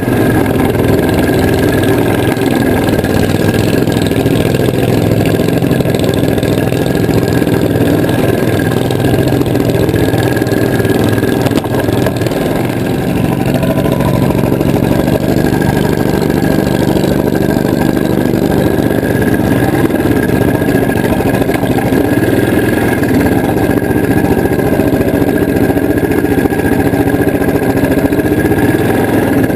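Engine of a vintage 1970 Hustler 6x6 ATV running steadily as the machine is driven, with a steady high whine over the engine note.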